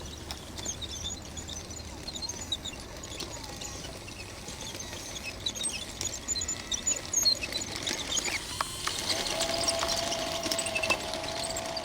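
Small birds chirping now and then. About nine seconds in, a steady mechanical whine starts, fitting the electric drive of the RC bulldozer running.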